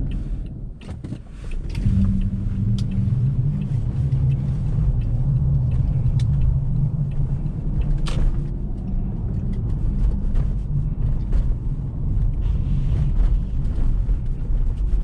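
Car driving through a snowstorm heard from inside the cabin: a steady low rumble of engine and tyres on a snowy road, with scattered sharp clicks and knocks. The rumble drops briefly about a second in, then picks up again.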